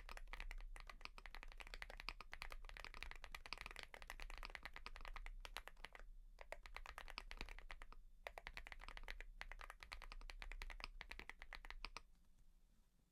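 Fast typing on a Mchose GX87 mechanical keyboard with KTT Fog Blue switches: a rapid run of key clacks with a couple of brief pauses, stopping about a second before the end.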